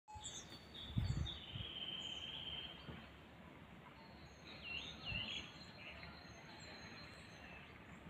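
Small birds singing and calling in a pine wood: a long trill in the first few seconds, two swooping notes about five seconds in, and thin high calls throughout, over a steady low background noise. A few low thumps near the start and about five seconds in.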